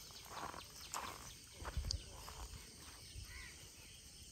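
Faint rustling and a few soft thuds of a nylon cast net being shaken out and dropped on grass to free its catch of small fish, the clearest thud a little under two seconds in.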